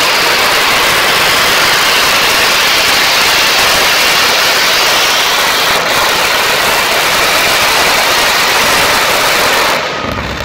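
Radial aircraft engine in a pulling tractor running at full power under load, very loud and dense. It cuts off suddenly near the end.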